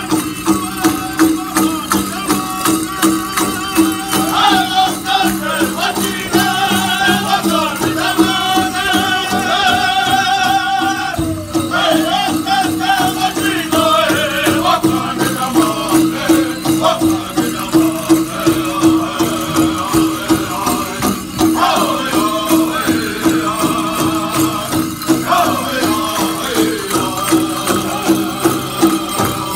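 Powwow drum group performing a chicken dance song: a big drum beaten in a steady pulse under a group of men singing in high voices, in phrases that fall away in pitch.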